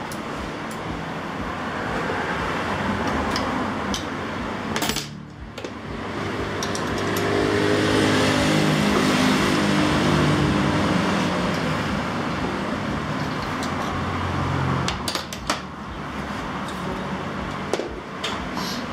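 Road traffic: a passing vehicle's engine swells to its loudest about eight to ten seconds in, then fades over a steady background hum. A few sharp metal clinks from tools near the end.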